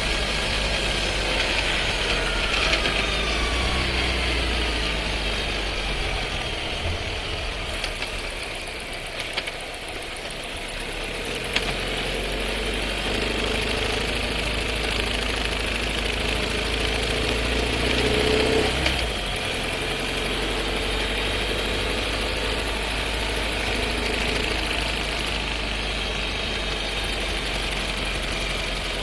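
Skoda Scala's 1.5 TSI four-cylinder engine and seven-speed dry-clutch DSG (DQ200), heard inside the cabin. The car slows in the first few seconds and settles low around the middle. It then pulls away with rising engine tones and a gearbox rattle and vibration, changes gear abruptly about two-thirds of the way in, and runs on steadily. The owner takes the rattle and vibration for a fault in the dry-clutch transmission.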